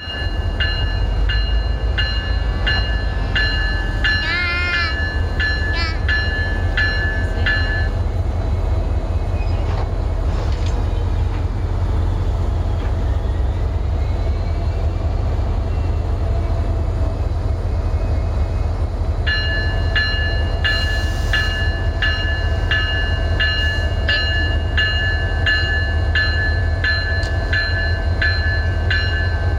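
Train rumbling steadily, with a bell ringing in regular strokes, about two a second. The bell stops at about eight seconds and starts again near twenty seconds.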